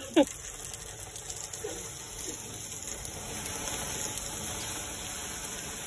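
Garden hose spraying water, a steady rushing hiss.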